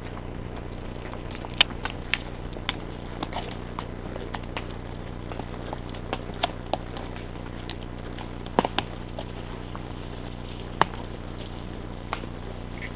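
Racking mare's hooves on a trail, with scattered sharp clicks and cracks at uneven intervals over a steady low hum.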